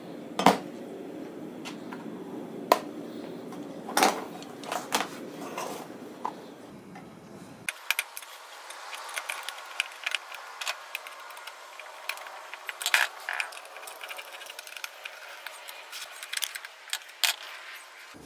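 Steel bracket and an angle grinder being handled and fitted together on a wooden table: scattered metallic clinks, knocks and scrapes, coming thicker in the second half.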